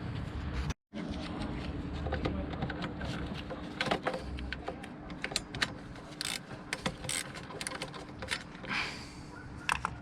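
Irregular metallic clicks and clinks of hand tools working on engine parts, with a brief cut in the sound about a second in.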